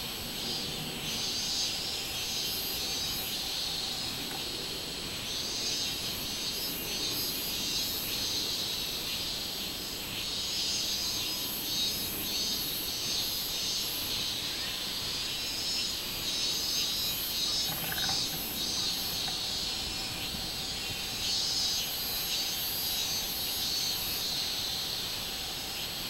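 Robust cicadas (minmin-zemi, Hyalessa maculaticollis) singing in a tree: a dense, continuous high-pitched buzz that pulses in strength.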